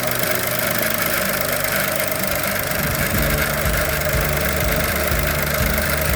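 Suzuki Hustler's 660 cc three-cylinder turbo engine running with a gritty rattling noise, which the owner traced to a faulty PCV valve. A lower rumble grows stronger about halfway through.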